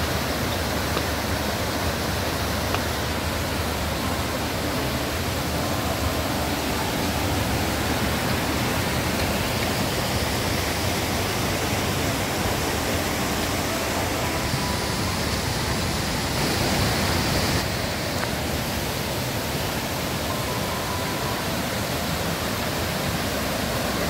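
Steady rushing of a waterfall and its creek cascading over rocks, a constant hiss with no breaks.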